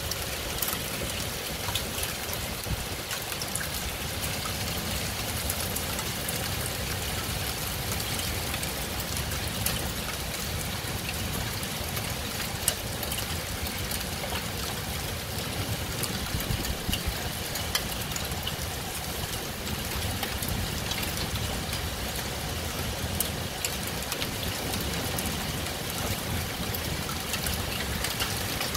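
Heavy rain falling steadily, a dense even hiss with scattered sharp ticks of drops striking nearby surfaces.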